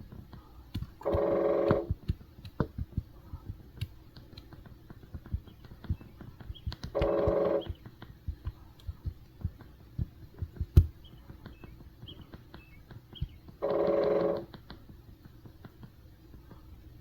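Woodpecker drumming in three short, rapid rolls, each under a second long, about six seconds apart, with scattered light taps in between.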